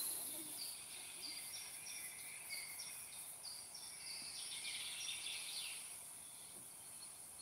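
Faint outdoor ambience with a small bird chirping: short high notes a little under half a second apart, then a denser run of twittering about two-thirds of the way through, over a steady high hiss.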